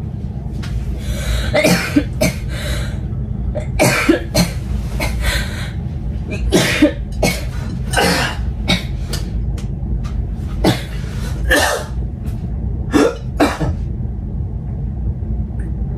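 A person coughing repeatedly in several short fits, over a steady low hum.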